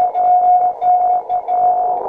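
Amateur radio Morse code (CW) signal: a single-pitched beep keyed on and off in long dashes with a short dot between, over faint receiver hiss.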